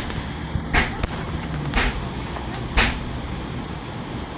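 Bathroom wall tiles being knocked off: a run of sharp, loud blows about a second apart, the loudest near the end.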